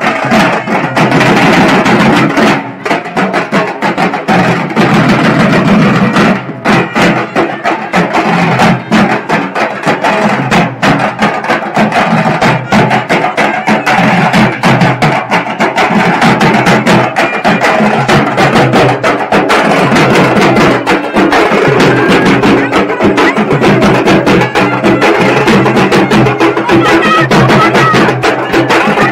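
A group of barrel drums played with sticks in a street procession, keeping up a fast, dense rhythm of strikes.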